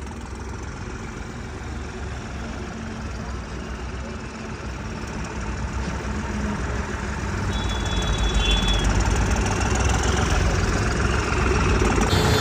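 Engine of a homemade bulldozer running on the road, growing louder in the second half as it nears or works harder.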